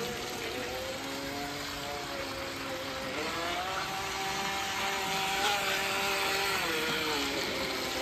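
Small electric motor and propeller of a Force1 Velocity H102 remote-control boat whining as it runs across the water. The pitch rises about three seconds in as the throttle is pushed, holds, then drops back near the end.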